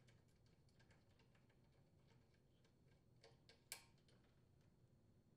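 Near silence with a few faint ticks and small clicks of a bolt and grounding wire being handled by hand; one click a little louder about three and a half seconds in.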